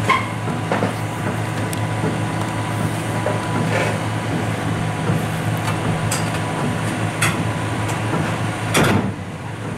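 Heavy diesel engine idling steadily on a Cat tracked hydraulic excavator, with scattered short mechanical noises and a louder brief burst of noise about nine seconds in.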